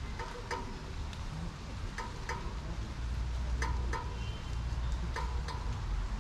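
Light rain pattering and hissing, with a pair of sharp taps about every one and a half seconds over a low rumble.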